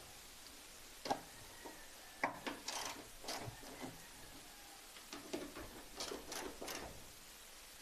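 Socket ratchet clicking in short, irregular runs while the tail light's two mounting bolts are tightened.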